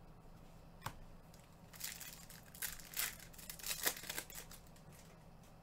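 Foil trading-card pack wrappers crinkling as they are ripped open and crumpled, in a cluster of crackly bursts from about two to four seconds in, after a single sharp click near the first second.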